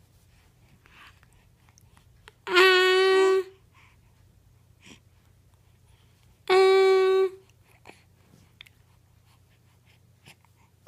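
A woman's voice holding a long 'ahh' vowel twice, each about a second on one steady pitch, a sound modelled for a baby to copy.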